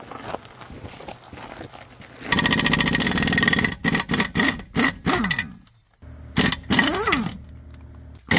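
Pneumatic impact wrench hammering lug nuts off a truck wheel: a long rattling burst about two seconds in, then a string of short bursts with the air motor's whine sliding up and down as it spins up and slows.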